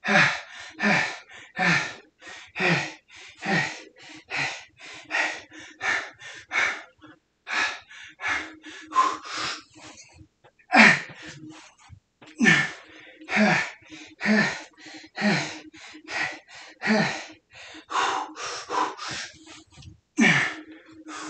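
A man breathing hard and fast while doing squats: quick, sharp inhales and exhales about twice a second, many of them voiced huffs that fall in pitch.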